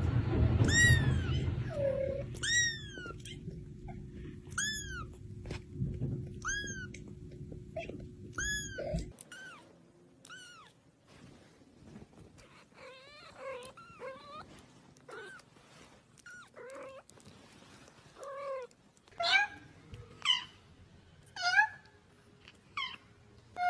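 Kittens mewing over and over in high, thin cries, about one a second at first, then lower and more broken, with a few louder cries near the end. A steady low background noise lies under the first part.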